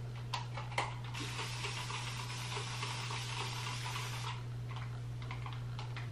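Continuous-mist spray bottle releasing a steady hiss of fine water spray for about three seconds, with a few light clicks before and after, over a steady low hum.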